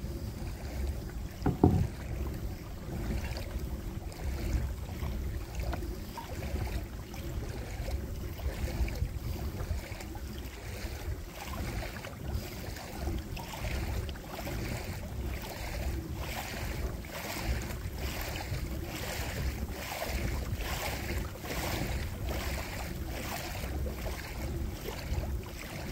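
Kayak paddle strokes splashing in a steady rhythm about once a second, over low wind rumble on the microphone. A single knock about a second and a half in.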